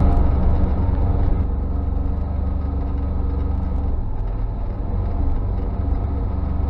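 UTV engine running steadily under throttle while driving on a rough dirt trail, a low drone that picks up at the start.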